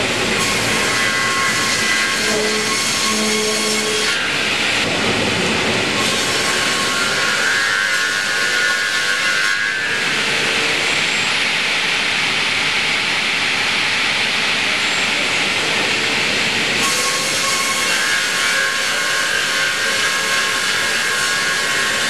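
Double-blade circular sawmill with two perpendicular saw blades running and cutting through a log, a steady loud hiss with a whine whose pitch shifts every few seconds.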